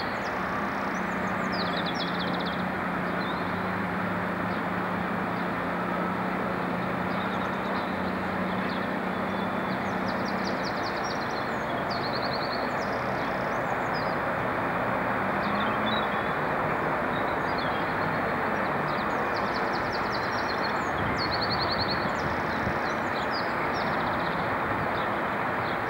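Electric multiple unit standing and creeping slowly under a bridge, giving a steady hum with a low tone that fades about ten seconds in. Small birds sing short trills over it.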